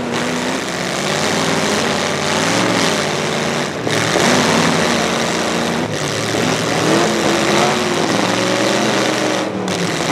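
Demolition derby trucks' engines running loud through open upright exhaust stacks, their pitch rising and falling as they are revved, with a few brief dips in the sound.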